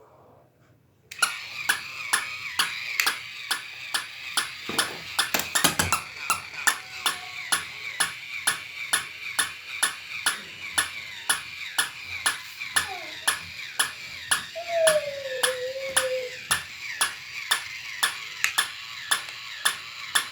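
Battery-powered toy puppy switched on about a second in: its small motor runs with a steady high whine and its mechanism clicks sharply, about twice a second, as it goes.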